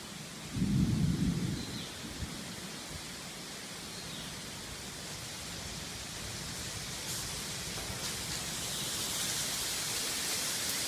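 A short low rumble of thunder about half a second in, over a steady hiss of rain that grows slightly louder toward the end.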